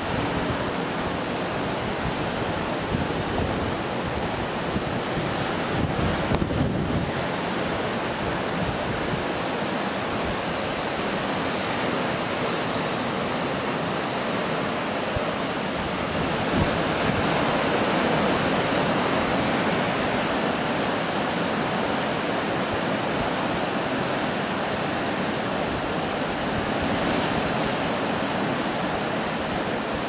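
Caribbean Sea waves breaking on a rocky shore: a steady, even wash of surf, with wind on the microphone, growing a little louder past the middle.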